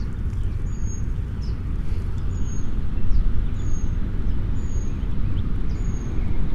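Steady low rumble of wind buffeting the microphone, with a faint short high tick about once a second.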